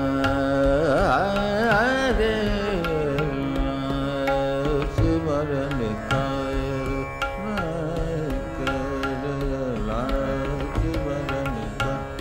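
Hindustani devotional singing: a male voice drawing out a wordless melodic line with wavering, gliding ornaments, over a steady tanpura drone and tabla strokes.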